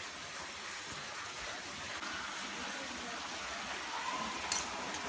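Steady hissing background noise, with a short sharp click about four and a half seconds in.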